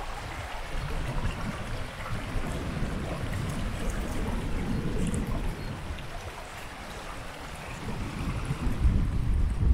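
Shallow river running and rippling over a stony riffle, a steady wash of water. Low gusts of wind on the microphone rumble under it, strongest near the end.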